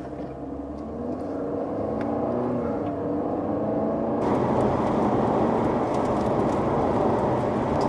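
Car engine accelerating, its pitch gliding up and down. About four seconds in, a loud rush of wind and road noise abruptly takes over.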